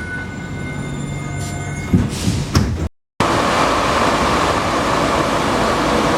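Alstom NS-93 metro train running, with steady whining tones over a low hum and two short knocks. After a brief cut to silence, a louder steady rushing noise of the running train takes over.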